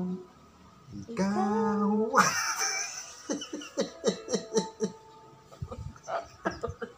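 A man sings a short last note, then breaks into laughter about two seconds in: a sharp first outburst followed by quick repeated laughs, about three a second.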